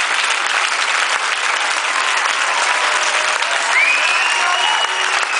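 Audience applauding, a dense and steady sound of many people clapping.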